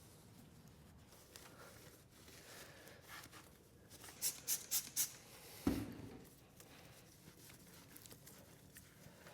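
Four quick squirts from a trigger spray bottle in close succession, followed by a single dull thump, with light rubbing and handling noise otherwise.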